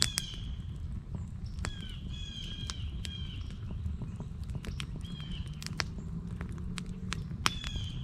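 Wood campfire crackling with sharp, irregular pops over a low rumble. A bird calls about five times in short, falling high notes.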